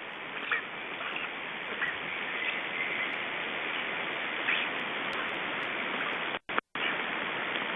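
Steady hiss of outdoor forest ambience picked up by a nest webcam's microphone, with a few faint bird calls and two brief dropouts about six and a half seconds in.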